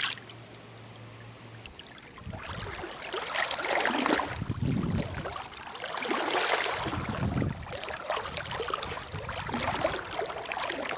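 River water splashing and rushing, quieter for the first two seconds, then coming in uneven louder surges.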